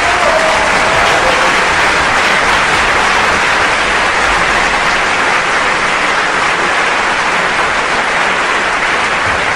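Studio-audience applause sound effect: a dense, steady wash of clapping that cuts in and cuts off abruptly.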